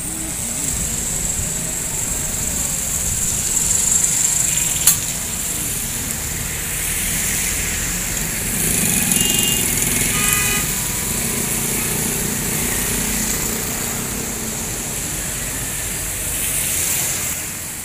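Road traffic on a rain-wet street: cars and motorcycles going past in a steady mix of engine rumble and high hiss. A sharp click comes about five seconds in, and a couple of short high tones near the middle.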